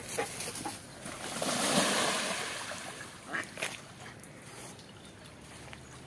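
Ducks splashing into the water and paddling away from the shore. The splashing rises to a loud rush about two seconds in, then dies down, with two short sharp sounds shortly after.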